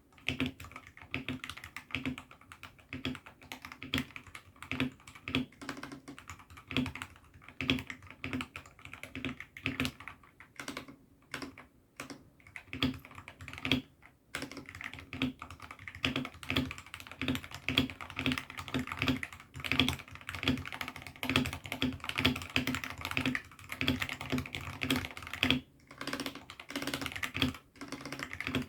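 Continuous typing on a mechanical keyboard fitted with AKKO Sakura switches in a 68-key hot-swappable board: rapid, uneven key clacks with a few brief pauses.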